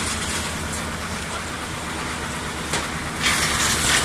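Wood chipper's engine running steadily at a low rumble, with a louder rushing hiss starting near the end.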